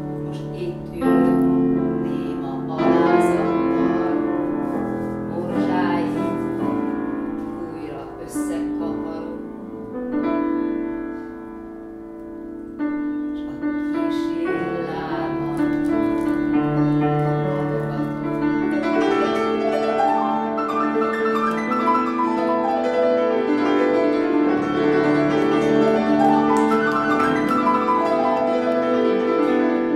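Piano music: a slow piece of held chords and melody notes ringing over one another.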